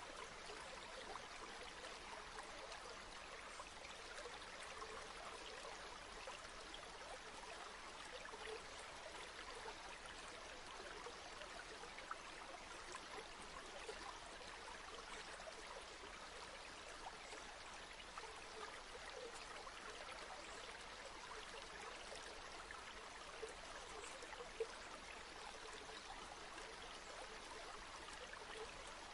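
Flowing river water: a steady, faint rushing babble with a couple of brief louder blips.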